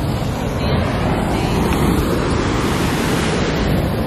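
Big ocean surf breaking on a rocky shoreline, a steady wash of noise, with wind rumbling on the microphone.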